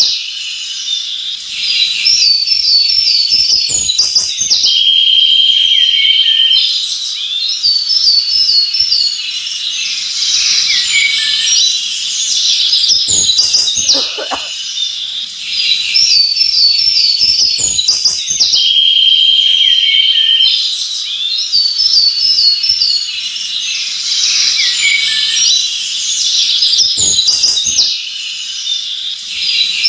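Forest birdsong: several birds singing at once, with overlapping whistled phrases, chirps and a long even trill. The same stretch of song comes round again about every fourteen seconds.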